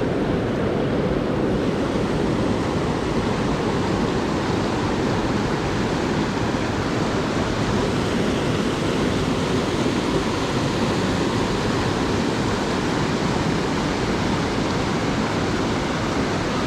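Steady rush of flowing water from a small mountain trout creek, close by.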